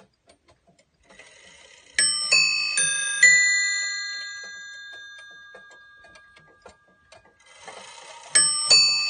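Triple-fusee skeleton clock's quarter chime on its five bells: after a few ticks the chime train whirs into motion and the hammers strike four bell notes in quick succession, which ring on and die away. Near the end the train runs again and a new run of bell notes begins.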